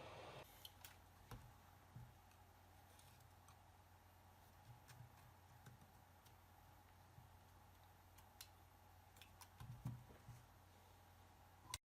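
Near silence over a low hum: a steady hiss stops about half a second in, then faint scattered clicks and light taps, a few small knocks near the end, and one sharp click just before the sound cuts off.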